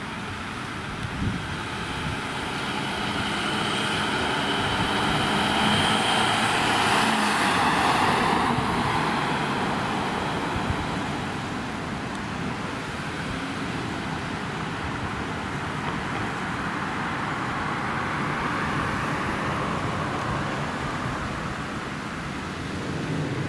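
Ambulance van driving past with engine and tyre noise, swelling to its loudest about seven or eight seconds in, then easing into steady road traffic noise.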